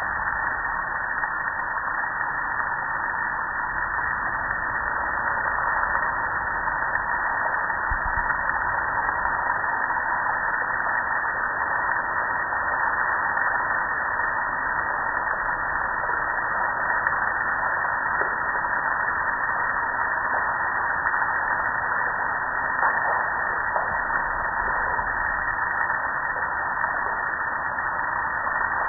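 Steady hiss of water spraying onto a metal gas grill and splashing onto the pavement below.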